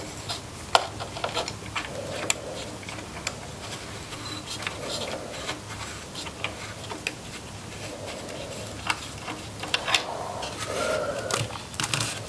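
Small metal tool scraping and rubbing along a glued wooden table leg, working off the glue squeeze-out, in slow repeated strokes with small clicks and taps between them.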